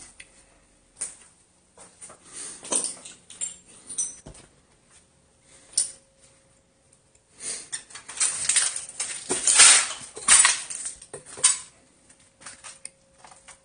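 Footsteps crunching over broken glass and debris: scattered single crunches and clinks at first, then a dense run of crunching and glassy clinking a little past halfway that lasts about three seconds.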